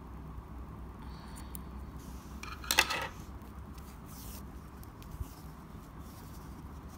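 Small scissors and a metal crochet hook being handled on a desk: a short clicking clatter about three seconds in, then a single soft tick, over a faint low hum.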